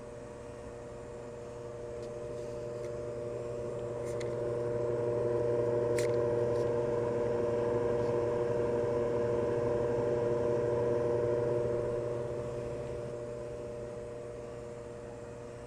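Honeywell HE360 powered flow-through humidifier running with a steady motor hum just after start-up. The hum swells louder for several seconds in the middle and then eases back, with a light click about six seconds in.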